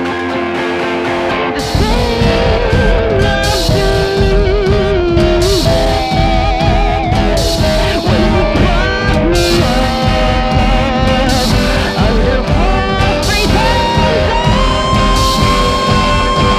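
Rock band song: electric guitar, then drums and bass come in about two seconds in and the full band plays on, with sustained, bending guitar lines on top.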